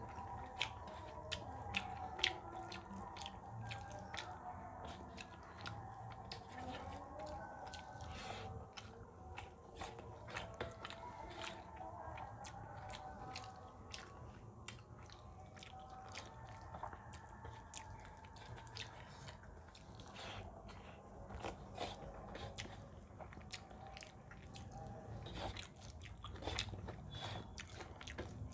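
Wet chewing and mouth smacks with many small sharp clicks, as rice mixed with potato curry is eaten by hand.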